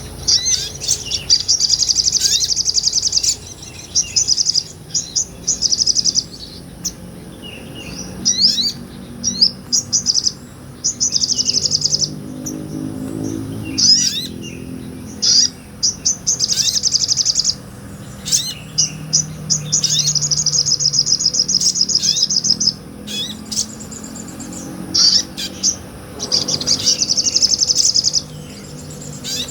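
Sogon (little spiderhunter, a small nectar-feeding bird) singing: long, fast, high trills lasting one to four seconds, broken up by sharp single chirps and short call notes.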